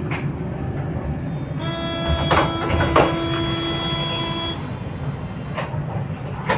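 Jerusalem Light Rail tram running, a steady rumble in the carriage. Starting about two seconds in, a steady electronic tone sounds for about three seconds, with two sharp knocks during it.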